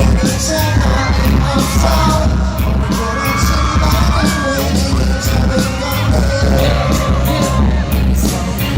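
Loud live pop music from a K-pop concert: singing over a heavy pulsing bass beat and hi-hats, with some crowd yells.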